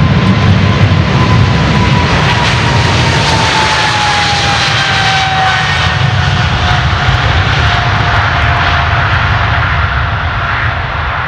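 Boeing 777-300's twin GE90 turbofan engines at takeoff power: a deep rumble with a whine that slowly falls in pitch as the jet passes, easing off a little near the end.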